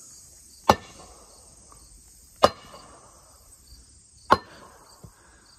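Three wood knocks: single sharp strikes of wood against a tree, evenly spaced just under two seconds apart, made as a deliberate signal series. Insects buzz steadily in the background.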